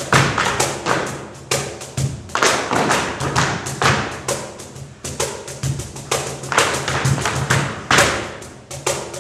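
Tap dancing: metal-tipped tap shoes striking a stage floor in quick, uneven rhythmic runs of strikes, over low sustained music.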